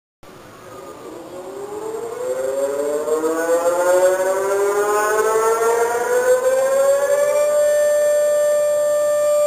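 Tsunami warning siren, a civil-defence siren, winding up: it starts a moment in, rises in pitch and loudness for about seven seconds, then holds one steady tone.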